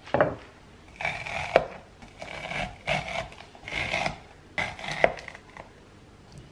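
A knock, then about five short scraping strokes in a row, each about half a second long, like something hard rubbed or scraped across a surface.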